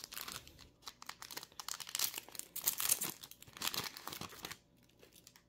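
Foil wrapper of a Dragon Ball Super Card Game booster pack crinkling and tearing as it is ripped open by hand. The crackling stops about four and a half seconds in.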